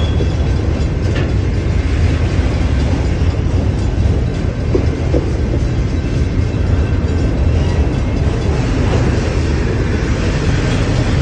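Union Pacific autorack freight cars rolling past close by: a steady, loud rumble of steel wheels on the rails.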